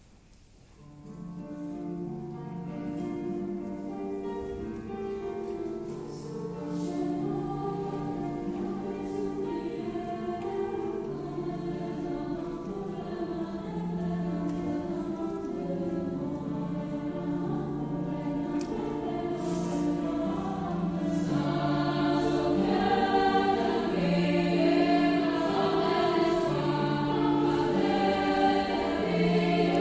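A choir singing. It comes in about a second in, with sustained notes that change every second or so, and grows louder toward the end.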